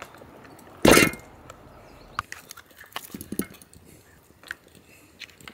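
Scattered light clinks and taps of a plastic spork and food trays against a steel mess-kit pan, after one short, loud rustle about a second in.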